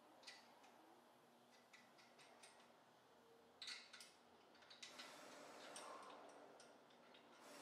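Faint, irregular metallic clicks and taps of hand tools working at a car's front wheel hub.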